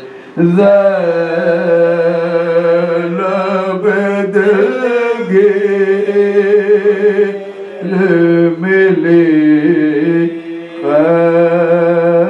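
Men's voices chanting soz, the Urdu Muharram elegy, without instruments, in long held, slightly wavering notes, with two short dips for breath late on.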